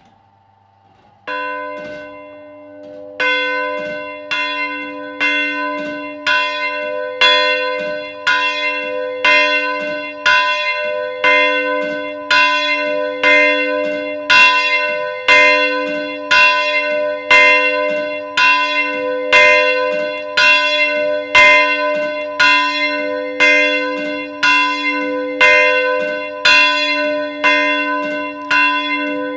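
Two swinging church bells ringing in a wooden belfry: one stroke about a second in, then both bells striking in a steady overlapping peal, about two strokes a second alternating louder and softer, each stroke ringing on into the next.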